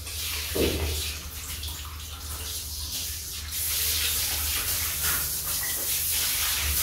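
Water spraying from a handheld shower hose onto a Rottweiler puppy's coat, getting louder about three and a half seconds in, over a steady low hum.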